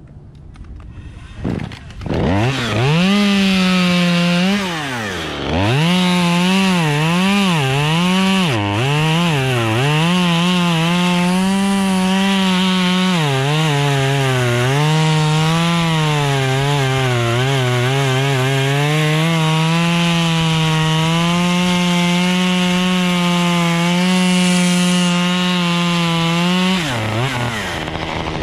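Two-stroke chainsaw revved up about two seconds in and cutting wood, its engine pitch sagging and recovering as the chain loads in the cut, then easing off near the end.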